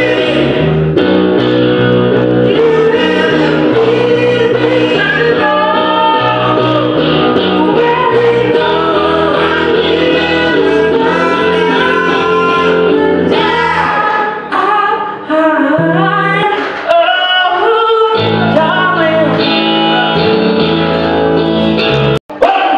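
Live rock band with two men singing together into one microphone over electric guitar and bass. The sound cuts out for an instant near the end at an edit.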